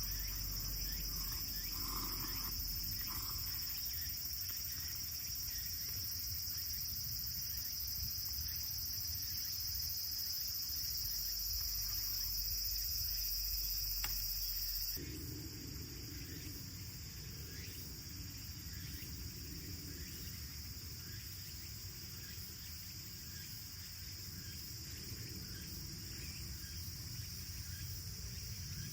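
Steady high chirring of insects. About halfway through it changes abruptly: the highest band drops out and a low hum takes its place, with a single sharp click just before the change.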